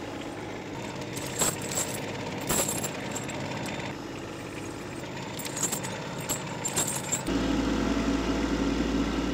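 Kubota B2601 compact tractor's three-cylinder diesel running as the tractor creeps forward onto a laid-out tire chain, with heavy steel chain links clinking and clanking against each other and the gravel as the rear tire rolls up onto them. The engine sound grows louder and deeper about seven seconds in.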